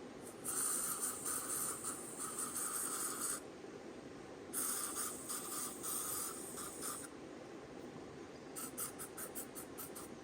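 Bug spray being sprayed: two long hisses of about three seconds each, then a quick series of short squirts near the end.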